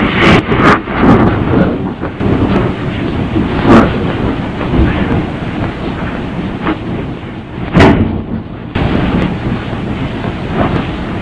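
Loud muffled rumbling and rustling noise, with a few sharp knocks near the start and about four and eight seconds in.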